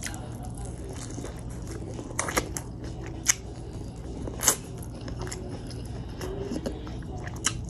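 Close-up mouth sounds of biting kernels off a Cajun-seasoned corn on the cob and chewing them, with a handful of short, sharp wet clicks and smacks spread through the chewing.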